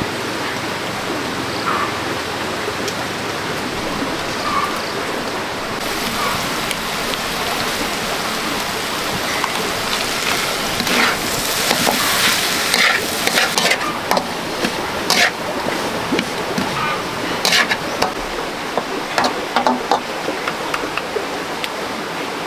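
Steady rush of running water, with a run of sharp clicks and knocks starting about halfway through.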